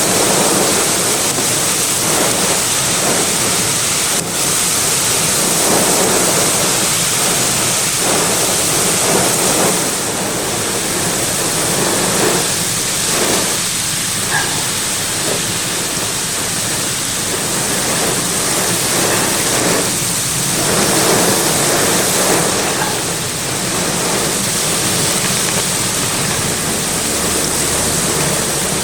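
Heavy rain mixed with hail pouring down in a severe thunderstorm, driven by strong wind gusts: a loud, steady rush of noise that swells and eases a little.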